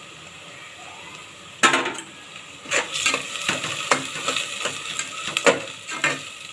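Metal spatula scraping and clacking against the inside of a pressure cooker while chopped onions, curry leaves and green chillies are stirred in sizzling oil. A sharp clack comes about a second and a half in, then a run of quick scrapes and taps.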